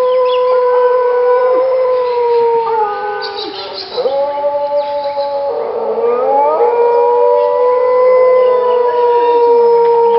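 A dingo howling: long, steady howls, dipping in pitch about four seconds in, with lower-pitched howls overlapping after that.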